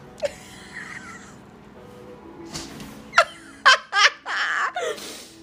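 Plastic bag rustling and crinkling as a cat moves about with its head pushed through it. About three seconds in come several short, loud bursts of a person's laughter.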